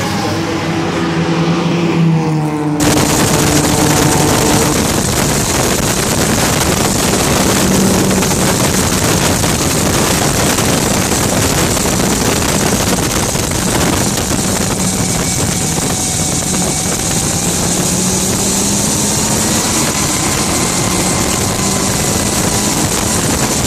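Rover Jet 1 gas-turbine car first passes by, its pitch falling. Then comes a cut to its open cockpit at speed: a loud, steady turbine whine mixed with heavy wind rush, with faint tones that slowly rise and fall as the turbine speed changes.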